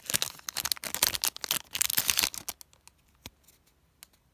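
Foil Pokémon booster pack wrapper crinkling and tearing open, a dense crackle for about two and a half seconds. It then drops to a few faint clicks as the cards are handled.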